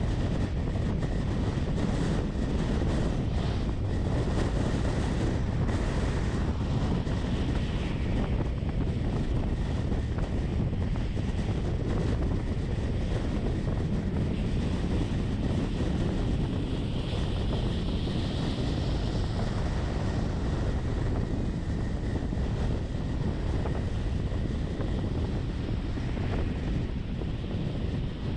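Steady rumble of a vehicle on the move: engine and road noise, heaviest in the low range, holding an even level throughout.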